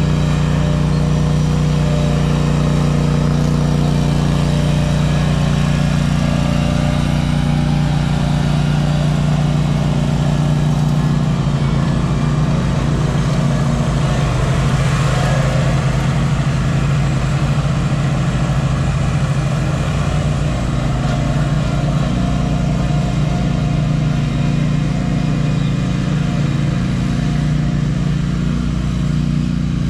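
Small engine of powered lawn-care equipment running steadily at a constant speed.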